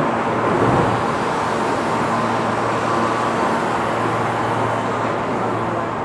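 Subway train standing at the platform with its doors open: a steady low hum from the train under a constant wash of station noise, with passengers getting off and on.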